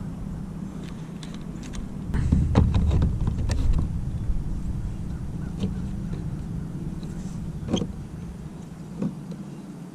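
Low steady rumble with scattered clicks and knocks, loudest from about two to four seconds in.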